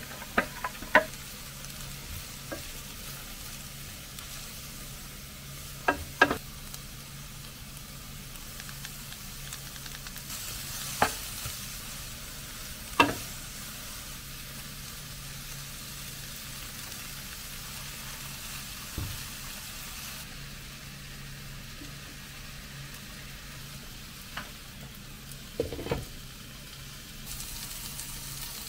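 Vegetables sizzling as they stir-fry in a nonstick frying pan, being turned with a spatula, with a few sharp knocks of the utensil against the pan.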